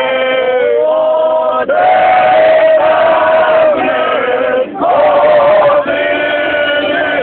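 A group of men singing together unaccompanied in traditional Bosnian folk style. They hold long, loud notes and break off briefly between phrases.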